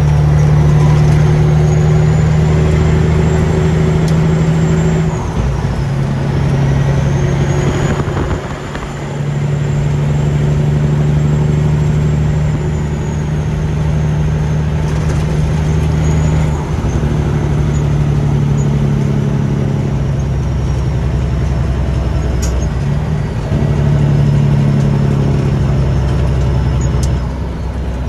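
Freshly in-frame-overhauled Caterpillar diesel engine of a semi truck pulling on its break-in run, heard from inside the cab. The engine note dips and steps in pitch several times as gears change, with a thin high whistle rising and falling over it.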